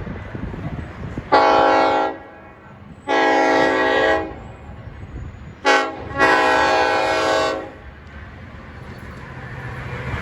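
Nathan K5LLA five-chime air horn on LIRR DM30AC locomotive 509, sounding the grade-crossing signal: two long blasts, a short one, then a long one. The low rumble of the approaching train grows louder near the end.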